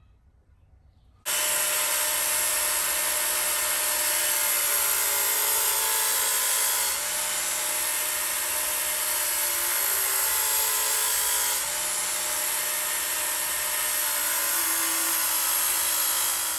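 Work Sharp handheld electric belt sharpener starting up about a second in, then running steadily with its 220-grit belt grinding a steel axe edge. This is the coarse grind that takes the edge down to remove a chip.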